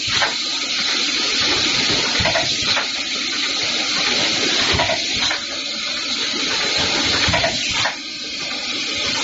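PVC insulation tape packing machine running with a steady rushing hiss, and a short hiss from its air-driven pressing heads about every two and a half seconds as they cycle onto the tape rolls.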